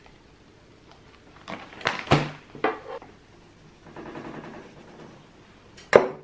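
A metal spoon knocking sharply against a frying pan several times as brown sugar is tapped off onto chopped tomatoes, then a soft patter of salt sprinkled by hand, and one more sharp knock near the end.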